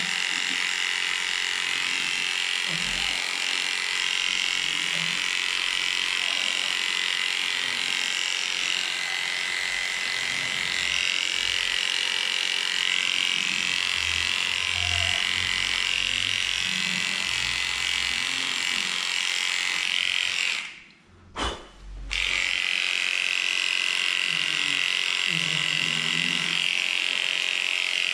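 Cordless electric dog clipper with an 8.5 blade running steadily while shaving a pug's body coat. It cuts out for about a second a little past the middle, then runs again.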